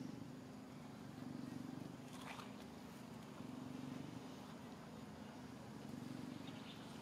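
A faint low hum that swells and fades every second or two, with a few soft rustles of young macaques scuffling in dry leaf litter.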